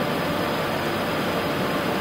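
Steady rushing flight-deck noise of an Airbus A380 in descent on approach, with gear and flaps extended: air and engine noise heard inside the cockpit, with a faint thin high whine above it.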